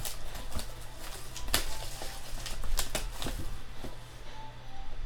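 Clicks and rustles of trading-card boxes and wrappers being handled, sharp and frequent for the first three seconds or so, then quieter.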